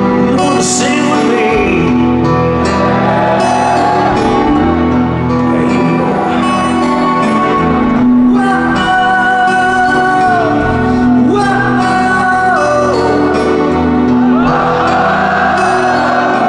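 Hard rock band playing live through a festival PA, heard from within the crowd: drums, bass and electric guitars, with a voice singing long held notes over them.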